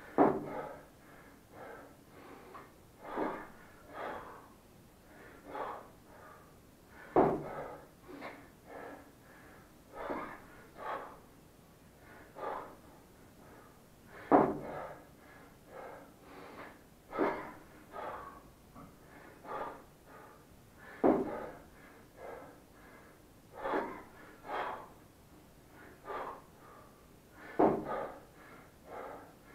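Hard, rhythmic breathing of a man doing kettlebell snatches with a 28 kg bell: a sharp, loud exhale about every seven seconds, once per rep, with quieter breaths in between.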